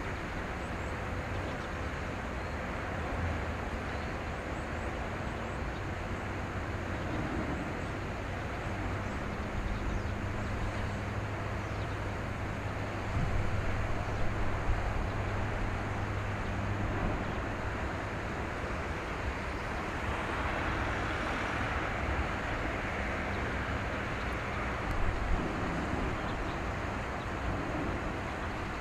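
Steady low engine drone mixed with road-traffic and wind noise; a vehicle swells past about two-thirds of the way through, with a few brief knocks near the middle.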